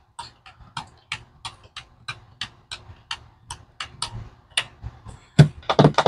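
Calculator keys being tapped in a steady run, about three key presses a second, as amounts are added up. Near the end a louder pitched sound comes in for about a second.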